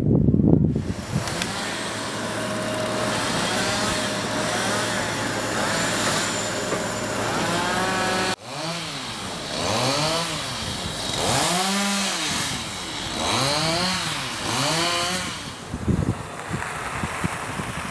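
A small engine running steadily, then, after an abrupt cut, revved up and down over and over, each rev a second or so long.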